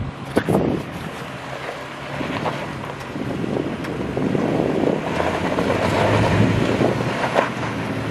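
Toyota Tacoma pickup's engine pulling under load as the truck crawls up a steep dirt slope, getting louder toward the middle and easing near the end, with wind buffeting the microphone and a few sharp ticks.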